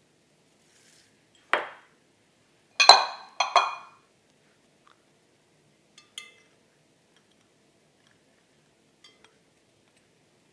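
Small glass bowls clinking against the rim of a glass mixing bowl as ingredients are tipped in: a sharp clink, then two louder, ringing clinks close together about three seconds in, then a couple of faint taps.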